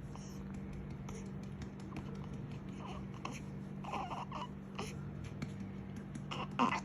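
A baby making a few short fussy vocal sounds while being burped after a feed, the loudest near the end.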